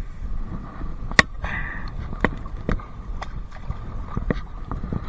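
Scattered sharp clicks and knocks of gear and footing on rough volcanic boulders, about half a dozen spread irregularly, over a low rumble of wind on the microphone.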